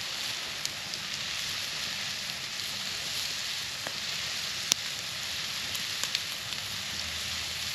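Brats and peppers sizzling on a cast iron grill grate over a wood campfire: a steady hiss with a few sharp, irregular crackling pops, the loudest about two-thirds of the way through.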